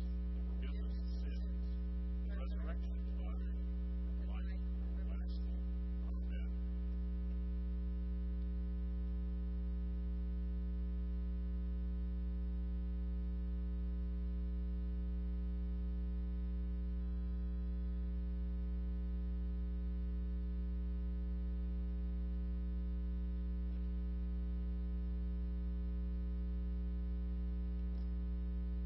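Steady electrical mains hum: a low buzz with a ladder of overtones, unchanging throughout. A faint voice sounds under it in the first six seconds or so.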